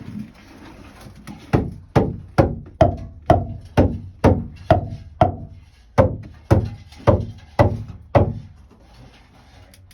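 Hammer blows on wood, about fourteen strikes at roughly two a second with a short pause midway, some with a brief ringing note: a mine timber being driven into place.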